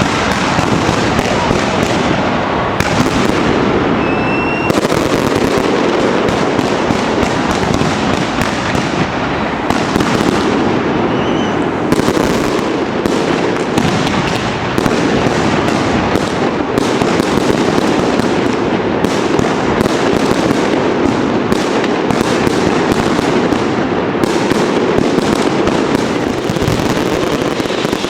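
Continuous, dense barrage of firework and firecracker bangs crackling without a break, with a couple of brief whistles in the first half.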